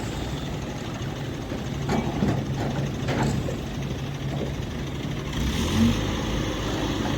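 Diesel engine of a Hydra mobile crane running steadily, with a few short knocks in the middle; the engine gets louder a little after five seconds in.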